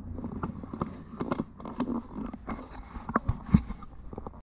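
Handling noise from a handheld camera being moved about: irregular knocks, clicks and rubbing, with one sharper knock near the end.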